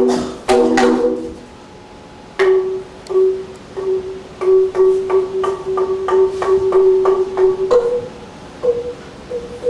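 Live instrumental music: a struck chord at the start, then one low note picked out again and again, about two to three times a second, moving up to a higher repeated note about eight seconds in.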